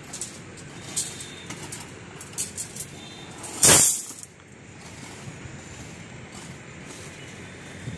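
Steady outdoor background noise with scattered short clinks and clicks, and one loud, sudden burst of noise lasting about half a second, about three and a half seconds in.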